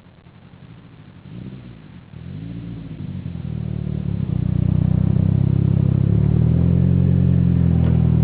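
Mitsubishi Lancer Evolution VIII MR's turbocharged 2.0-litre four-cylinder engine revving, its pitch swinging up and down at first. It then builds over a couple of seconds to a loud, steady high-rev note held to the end.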